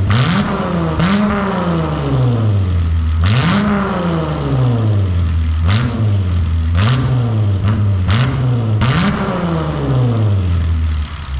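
2014 Jeep Grand Cherokee's engine revved about seven times in quick blips, each one rising and falling in pitch, through valved mufflers with the valves open. The exhaust is nearly straight-piped.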